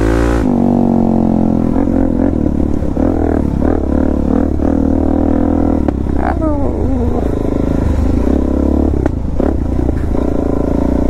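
Suzuki DR-Z400S's carbureted single-cylinder four-stroke engine, breathing through a slip-on exhaust, running under throttle on a dirt trail. The revs swing up and down as the rider works the throttle, with a quick drop in revs about six seconds in.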